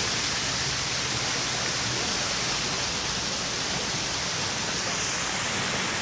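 A steady, even rushing noise, brightest in its hiss, with no breaks or separate sounds.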